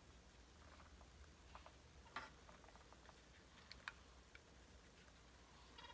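Near silence: quiet room tone with a faint low hum and a handful of faint, scattered clicks, the clearest about two seconds in.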